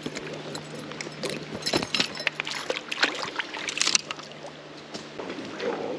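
Creek water splashing and dripping close by as a trout is handled in a landing net held in the stream, with irregular small splashes and taps.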